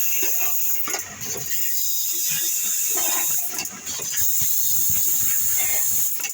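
Dishwasher-tablet packing machine running: a steady high hiss with mechanical knocks and rattles underneath, the hiss breaking off briefly about every two and a half seconds in a repeating cycle.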